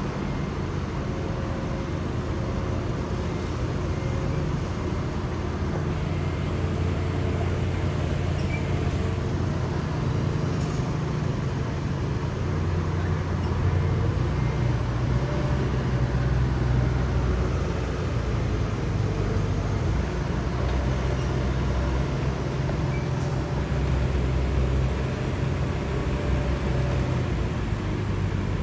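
Steady low rumble of engines from heavy vehicles or machinery, swelling and easing over several seconds, with faint steady hums above it.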